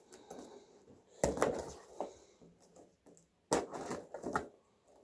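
Cardboard shipping box being opened by hand: its flaps pried and pulled apart, giving a few short, sharp cardboard scrapes and crackles, the loudest about a second in and again about three and a half seconds in.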